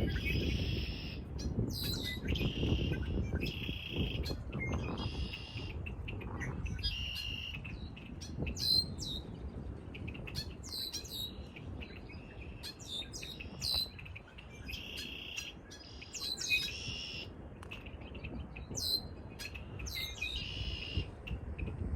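Several songbirds singing. Short warbled phrases come every couple of seconds, mixed with sharp high, sweeping whistled notes. Wind rumbles on the microphone underneath, strongest in the first few seconds.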